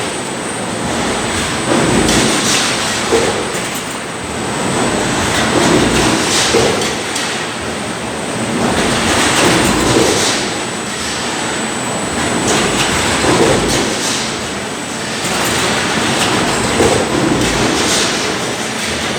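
Heavy press die moving on motorized pre-rollers: a steady rumbling clatter that swells every couple of seconds, with a thin high whine through most of it.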